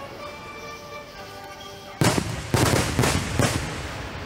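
Aerial firework shells bursting: four loud booms in quick succession starting about halfway through, each trailing off in an echo, over music with held notes playing through loudspeakers.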